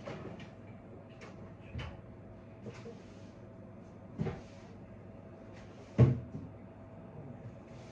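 Scattered knocks and clunks of objects being handled and set down, about five in all, the loudest about six seconds in.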